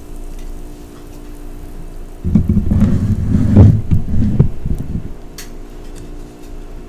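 Butter and oil sizzling quietly in a frying pan, overlaid from about two to five seconds in by a loud, uneven low rumble.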